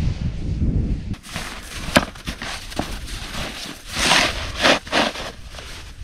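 Wind buffeting the microphone for about the first second. Then come a couple of sharp knocks and several short crunching, scraping bursts in packed snow, from a shovel and boots working around a snow-covered fire pit.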